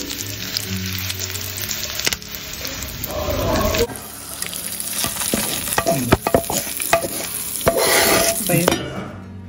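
Hot oil tempering of mustard seeds, dals, dried red chillies, garlic and curry leaves sizzling and crackling in a pan. A little after the middle, a spoon clicks and scrapes in a bowl of chutney. Near the end, the hot tempering is poured onto the chutney with a short hissing sizzle.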